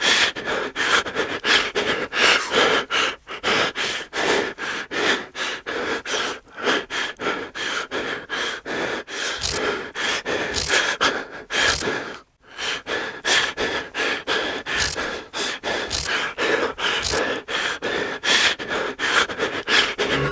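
A person breathing hard in quick, loud gasps, about three a second, with a brief pause about twelve seconds in.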